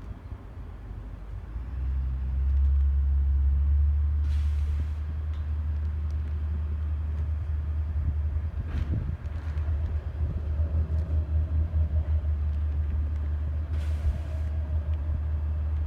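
Heavy diesel engine of a crane truck running under load: a deep rumble that rises about two seconds in and throbs unevenly in the second half.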